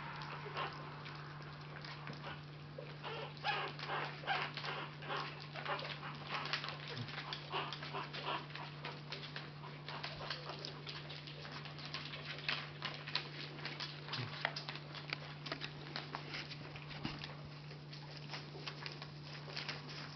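Boston Terrier puppies eating raw ground beef: quick, irregular wet smacking and chewing, with little puppy whines mixed in.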